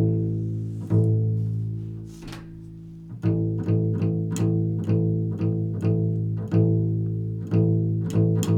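Low notes plucked on a string instrument in a slow, repeating improvised pattern, each pluck ringing on; the playing thins out briefly about two seconds in, then resumes with a pluck roughly every half second.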